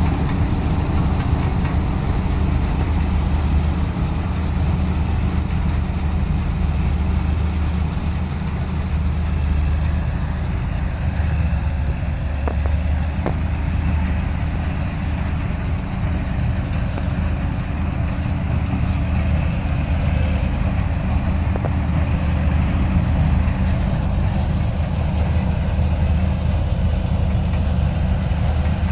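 Diesel engine of a Vishal 435 combine harvester running steadily, a low, even drone with no change in speed.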